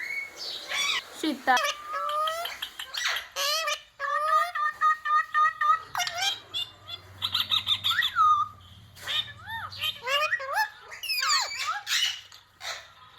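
Indian ringneck parakeet vocalizing: a rapid string of high chirps, squawks and quickly swooping whistled calls mixed with mimicked word fragments, with a few held whistled notes around the middle.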